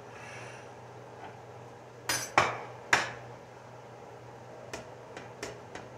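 Ceramic plates and a metal spatula clanking on a kitchen counter: three sharp clanks with a short ring about two seconds in, then a few lighter clicks near the end.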